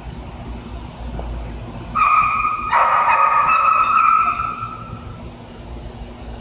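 Shelter dogs in their kennels whining and barking: a loud, steady high-pitched whine starting about two seconds in and lasting about two seconds, with a bark layered over it, above a low steady hum.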